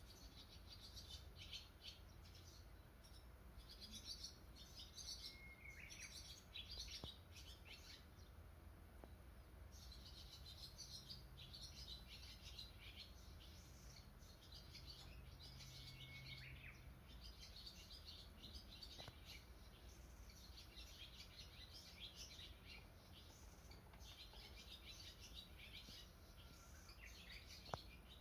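Faint chirping and twittering of small songbirds, almost without pause, with a held whistled note twice.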